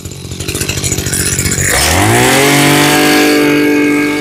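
Maruyama BIGU KC2300B brush cutter's 23cc engine idling unevenly, then revved up with a rising whine a little under two seconds in and held at high speed.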